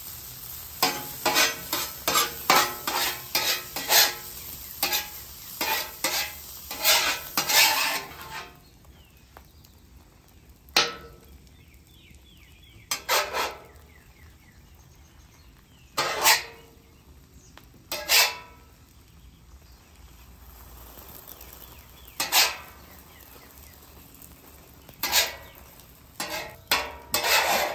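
Metal spatula scraping and clacking on a steel griddle top. It starts with a quick run of strokes for about eight seconds while diced Canadian bacon is chopped and pushed, then gives single scrapes every few seconds, then another quick run near the end as the omelet is folded. Faint frying sizzle lies under it all.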